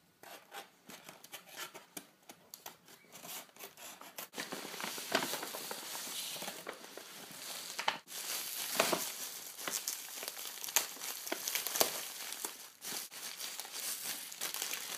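Plastic postal mailer and bubble wrap crinkling and rustling as hands open the package and dig through cellophane-bagged items, fainter at first and louder from about four seconds in.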